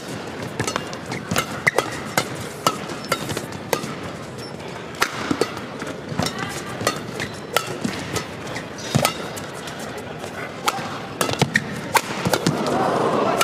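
Badminton rally: rackets striking a shuttlecock back and forth, a string of sharp cracks at irregular intervals over hall noise. Near the end the crowd noise swells.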